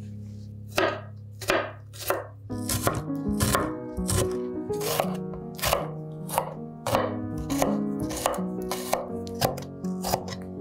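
Knife chopping on a cutting board in steady, even strokes, about one and a half a second, starting about a second in. Background music plays underneath.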